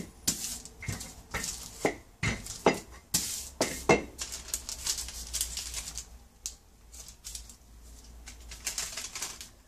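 Wax paper crinkling and rustling as hands smooth and lift it over rolled-out pie dough: sharp crackles in the first four seconds, then softer rustling.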